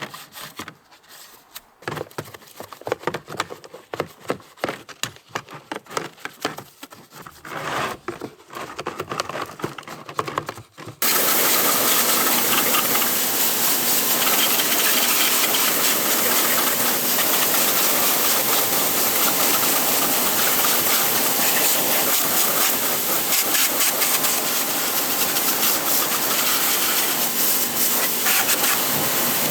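A brush scrubbing an RC car in short, irregular strokes. About eleven seconds in, a loud, steady spray of water starts suddenly and keeps hissing.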